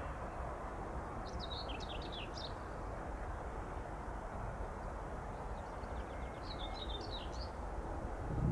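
A songbird singing two short twittering phrases of quick high chirps, one about a second in and one about six and a half seconds in, over a steady low outdoor background noise.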